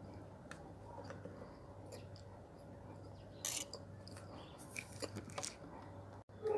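Wet, soft mouth sounds of someone chewing a mouthful of brown clay mixed with water. The clay is moistened, so there is no crunch. A few sharp clicks and smacks come about halfway through and again near the end, over a steady low hum.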